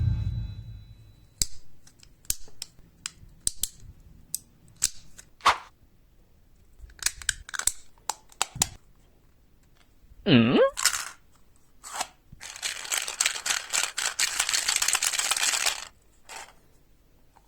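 Plastic parts of a 3D-printed PLA mechanical egg clicking and snapping as it is handled and twisted. There is a brief rising squeak about ten seconds in, then a run of rapid ratcheting clicks lasting about three seconds near the end.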